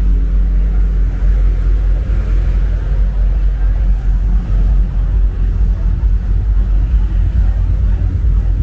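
Night-time street traffic ambience: a loud, steady low rumble of motor vehicles.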